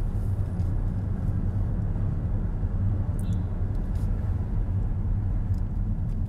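Steady low rumble of a car driving, engine and road noise heard from inside the cabin, with a couple of faint clicks about halfway through.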